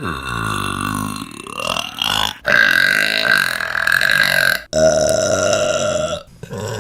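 Women burping: three or four long, drawn-out burps one after another, each cut off abruptly and followed at once by the next.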